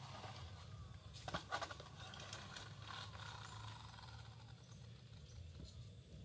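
Faint, steady whirr of a WPL D12 RC pickup's small electric motor and gearbox as the toy truck drives and turns on a concrete path, with a short cluster of sharp clicks about a second and a half in.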